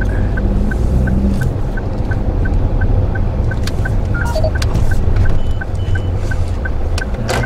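Cabin noise of a 2013 Daihatsu Move Custom RS kei car, a steady low engine and road rumble, with the turn-signal indicator ticking evenly at about three ticks a second.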